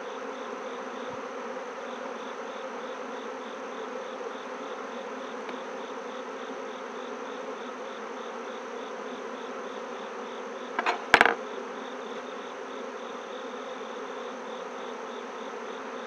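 Honeybees buzzing around an opened hive, a steady dense hum. About eleven seconds in comes a short, sharp knock, the loudest sound.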